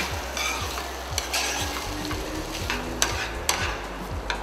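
A metal spatula stirring a thick tomato and plantain sauce in a frying pan over the heat, with irregular scrapes and taps against the pan over a light sizzle.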